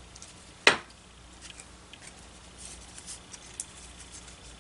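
A single sharp tap just under a second in, then faint rustling and light ticks as small cardstock pieces are handled.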